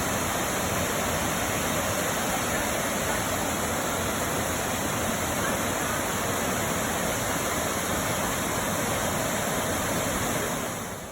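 Waterfall pouring into its plunge pool: a steady, dense rush of falling water that drops away abruptly just before the end.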